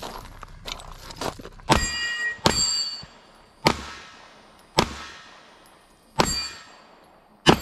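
Six handgun shots fired at an uneven pace, a second or so apart. Several are followed by the bright ring of a steel target being hit.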